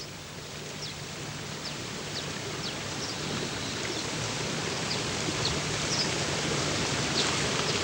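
Fountain jets splashing into a stone basin: a steady rush of falling water that slowly grows louder, with a few faint high chirps over it.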